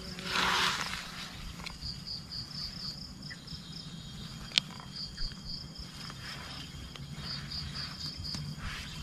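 Insects chirping in runs of short, high, rapid chirps, about five a second, over a low steady background hum. There is a brief rustle in the first second and a single sharp click about four and a half seconds in.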